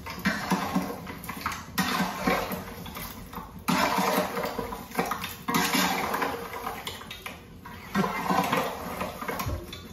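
Chunks of mutton and bone being stirred and turned with a wooden spatula in a large cooking pot: scraping, sizzling and shuffling, with a low steady rumble underneath. The sound changes abruptly several times.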